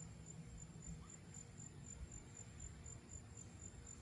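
Insect chirping: a steady, high-pitched pulsing trill of about five chirps a second, over a faint low rumble.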